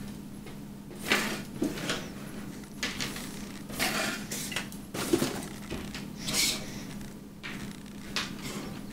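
Packaging and box contents being moved about and cleared away by hand: irregular rustles and light clattering knocks every second or so, over a faint steady hum.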